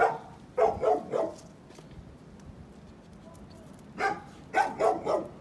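A dog barking: a run of about four quick barks at the start, then another run of about four barks from about four seconds in.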